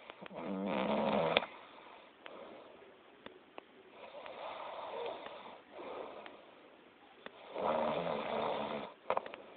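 A sleeping person snoring loudly: two snores about a second long each, some seven seconds apart, with quieter breathing between them and a brief burst near the end.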